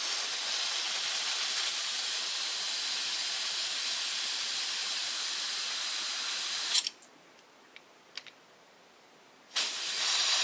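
Butane gas hissing as a canister nozzle is pressed onto the refill valve of an HS-1115K cordless butane soldering iron, filling its tank. A long steady hiss cuts off with a click about seven seconds in, and a second shorter hiss starts near the end.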